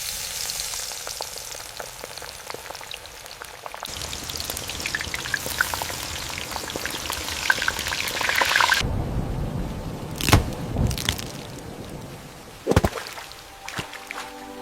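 Rain falling as a dense steady hiss, changing abruptly twice as the sound jumps between takes. In the second half it turns duller and lower, with a few sharp thumps.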